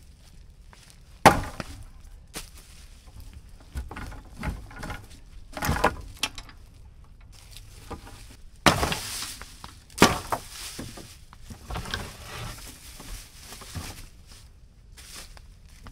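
Wooden boards knocking, clattering and cracking as they are handled and broken. The impacts come irregularly, with a sharp loud knock about a second in and a longer scraping clatter about eight to nine seconds in.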